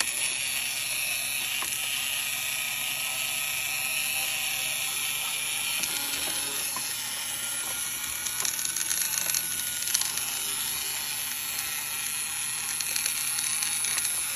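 Toy walking robot's gear motor running with a ratcheting, clicking whir that starts suddenly and stays steady, while the robot fails to walk for a cause not yet found.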